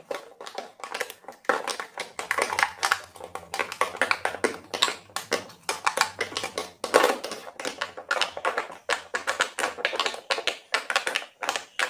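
Silicone pop-it fidget toys having their bubbles pressed in quick succession, a fast, irregular run of short pops and clicks.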